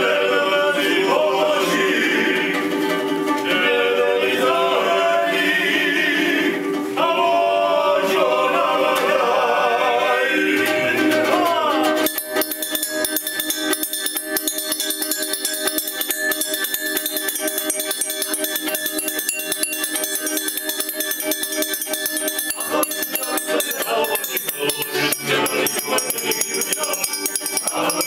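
Male ensemble singing a Georgian folk song in several voice parts, a cappella. About twelve seconds in the sound changes abruptly to a denser, steadier texture of held notes with a fast rattling patter over them.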